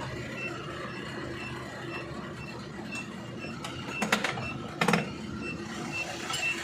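Dongfeng C32 truck's engine turning over with a steady mechanical clatter, while a short high electronic beep repeats evenly. Two sharp clanks come about four and five seconds in.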